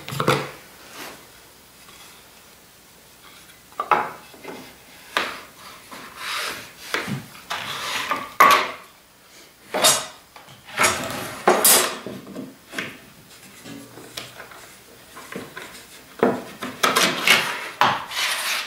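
Wood and metal hardware being handled on a workbench: irregular knocks, clinks and scraping as a wooden block is fitted onto a T-track rail and a T-bolt knob is tightened.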